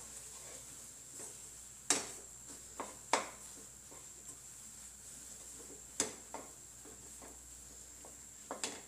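Wooden spatula stirring and pressing thick rice-flour dough in a nonstick kadhai, with a few sharp knocks of the spatula against the pan, the loudest about two seconds in and again about six seconds in.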